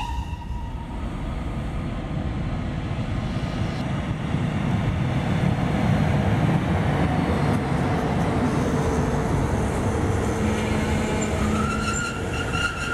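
Class 110 electric locomotive and its coaches rolling past on the rails, a steady low rumble of wheels that grows louder about four seconds in as the train draws level and stays loud as the coaches pass.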